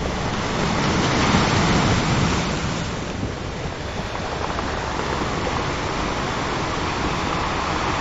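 Ocean surf washing onto a shore, swelling about a second in, easing off around three seconds, then a steady wash.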